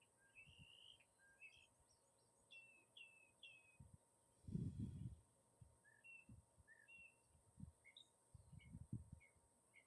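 Faint bird song: a run of short chirps and whistled notes, some sliding in pitch. A few low muffled thumps come in between, the loudest about four and a half seconds in.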